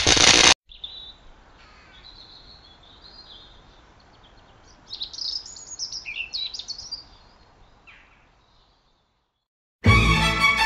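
A loud burst of noise cutting off abruptly just after the start, then faint bird chirps over a low hiss, strongest in the middle and fading away. Music with violin comes in near the end.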